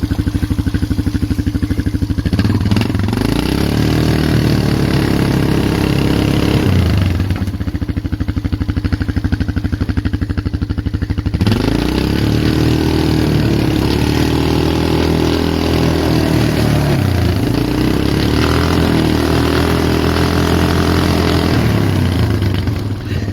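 Polaris Magnum 425 ATV's single-cylinder four-stroke engine running under load in deep snow, revving up three times (about 2 s in, about 11 s in and about 17 s in), each time holding the higher pitch for several seconds before easing back.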